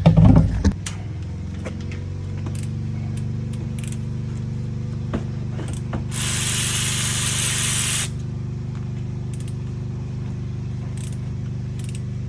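A power tool's motor runs steadily throughout, after a sharp knock at the start. About six seconds in, a two-second hiss of spray cuts in over it.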